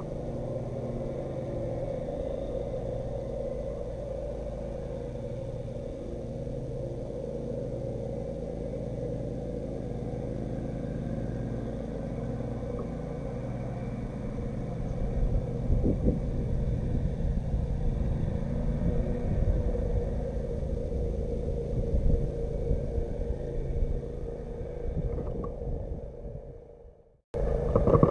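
Steady low rumble of wind buffeting the action camera's microphone, with a constant hum underneath; it gets louder and gustier about halfway, and the sound drops out briefly near the end.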